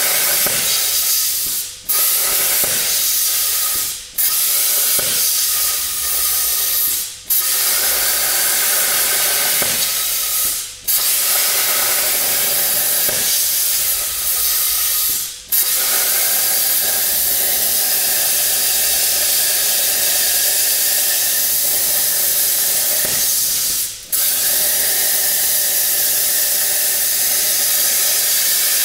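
Hypertherm Powermax plasma cutter torch cutting a 4 mm thick steel pipe: a loud, steady hiss of arc and air. The hiss falls away and snaps back about six times, then runs unbroken for the last stretch.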